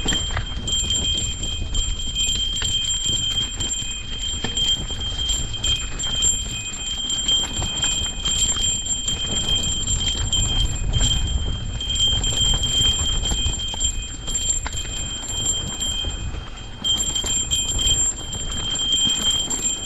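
Mountain bike rolling over a rough trail: chain and frame rattling and clattering over a constant low wind rumble on the microphone, with a steady high whine that drops out briefly about three-quarters of the way through.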